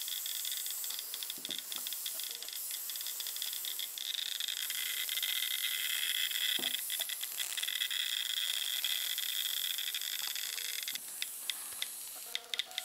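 High-voltage hiss from a magnetron run at tens of kilovolts from a flyback transformer, with a Geiger counter clicking rapidly as it picks up the X-rays the tube gives off. The hiss grows louder about four seconds in and falls away near the end, leaving separate clicks.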